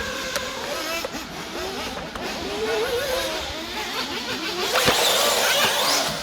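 High-revving engines of 1/8-scale RC buggies on a circuit, their pitch rising and falling as the cars accelerate and brake. There is a sharp knock about five seconds in.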